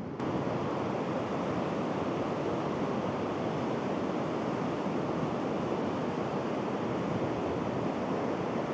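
Breaking sea surf on a wide sandy beach mixed with strong blustery wind: a steady, even rush of noise.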